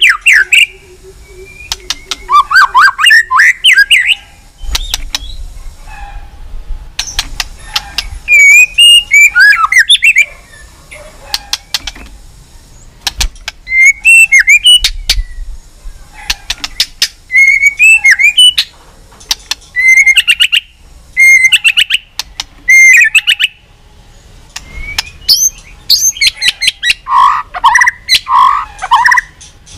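White-rumped shama singing loud song phrases of sliding, fluty whistles mixed with sharp clicking notes, one phrase every few seconds with short pauses between.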